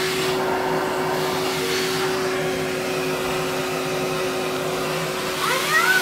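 Vacuum cleaner running steadily, a constant motor hum and whine over a rush of air as its floor head is worked over carpet.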